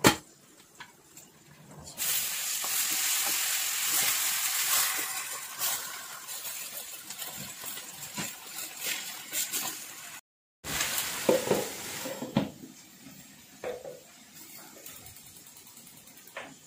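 An aluminium lid clanks onto a pot. About two seconds in, pui shak (Malabar spinach) leaves hit hot oil in a karahi and sizzle loudly, the hiss slowly dying down. After a short break, a few metal clinks sound over a fainter sizzle as the greens are stirred and covered.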